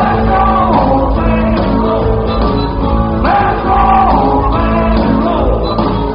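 Live rock and roll band playing, loud, with a singer holding and sliding long notes over the band.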